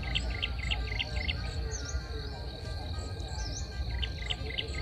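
Outdoor chorus of insects and small calling animals: a steady high insect drone, with a run of quick repeated chirps at about five a second early on and again near the end, and short sweeping high notes repeating every second or so over a constant low rumble.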